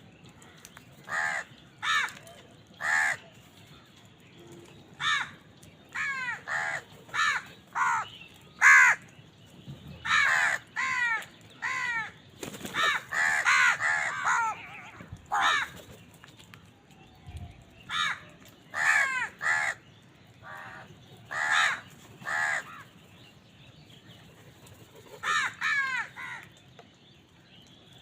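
Crows cawing over and over: short harsh caws in irregular runs, several birds overlapping about halfway through, with brief quieter gaps between runs.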